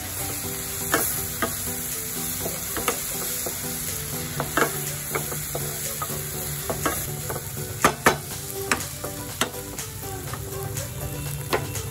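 Wooden spatula stirring a sizzling tomato-onion masala in a pan: the frying hiss runs under irregular scrapes and knocks of the spatula against the pan, with a few louder knocks about eight seconds in.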